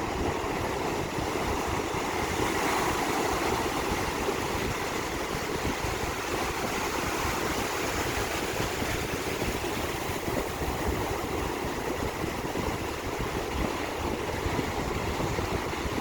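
Ocean surf washing onto a beach as a steady rush, swelling slightly a few seconds in.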